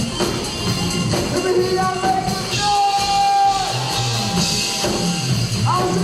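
Live gospel praise-and-worship music: singing over a band, with one long held note in the middle.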